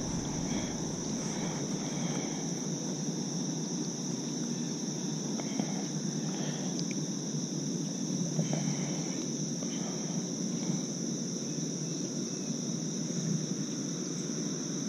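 A steady chorus of crickets or similar insects, a constant high-pitched trill, over a low, even rushing noise.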